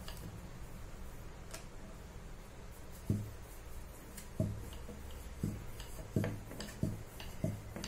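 Wooden rolling pin rolling out a small round of pastry dough on a plastic board, with soft knocks about once a second from about three seconds in.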